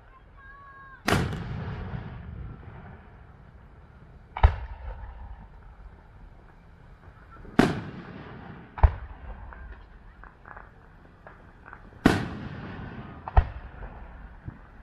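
Aerial fireworks going off: six sharp bangs, spaced about one to four seconds apart, some followed by a rolling echo, with faint crackles in between.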